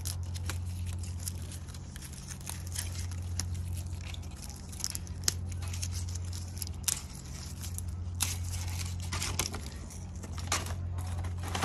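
Lower leaves being pulled and torn off the base of a pineapple crown by hand: a string of short tearing snaps and crackles, over a steady low hum.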